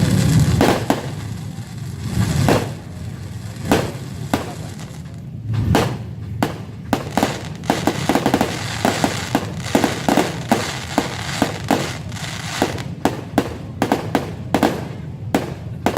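New Year fireworks going off: a few scattered bangs at first, then from about six seconds in a fast run of sharp cracks, several a second.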